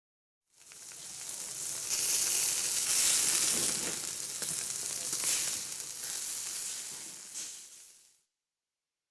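A crackling hiss, full of fine pops, that fades in about half a second in, is loudest in the middle and tapers away, stopping about eight seconds in.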